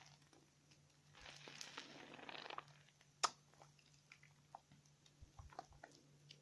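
Wet bar of 72% laundry soap being lathered by hand: a soft squishing rub for a second or so, one sharp click a little after three seconds in, then scattered faint crackles.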